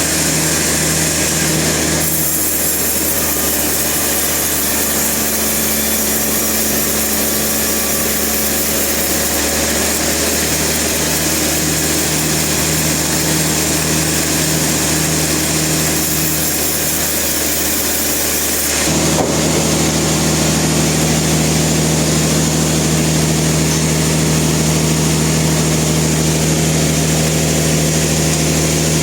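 Sawmill machinery running steadily under a constant engine hum. About two-thirds of the way through there is a sharp click, after which it runs louder with a stronger hum.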